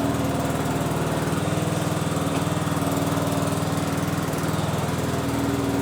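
John Deere S92 riding mower's engine running at a steady speed as the mower is driven along.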